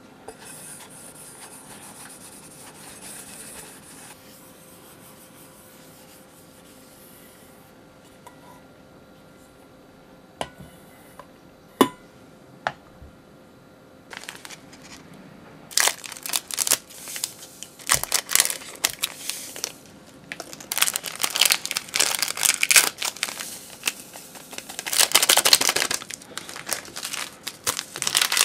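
Small plastic sachets of powdered gelatin being torn open and crinkled in the hands, the powder shaken out of them into a glass measuring jug, in dense rustling stretches through the second half. Before that, low room noise with a few sharp clicks a little before the middle.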